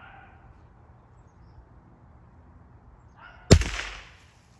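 A single shot from a Savage .22 Long Rifle rifle about three and a half seconds in: one sharp crack that dies away in under a second.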